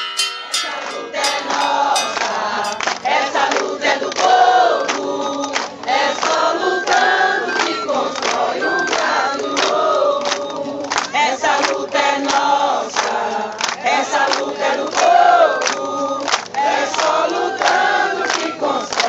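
A crowd singing together in chorus, with sharp, regular beats running through the song.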